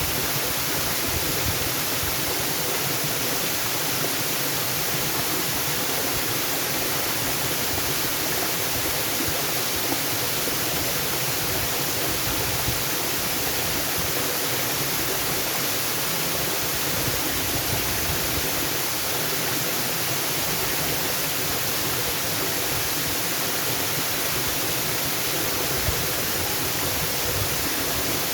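Waterfall: a steady, unbroken rush of falling water, a dense hiss strongest in the high end.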